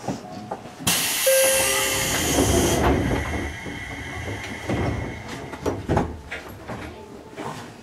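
Sudden hiss of compressed air about a second in, lasting about two seconds, as the Seibu 101-series train's pneumatic doors close. A low rumble follows and fades, with a few sharp clunks.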